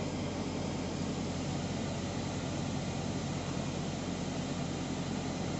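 Steady low engine hum with an even hiss, heard from inside the cab of a parked semi truck left idling.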